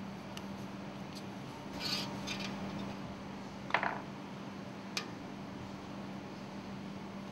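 Small handling noises at a workbench: a soft rustle, then a short metallic clatter about halfway through and a single click a second later, over a steady low hum.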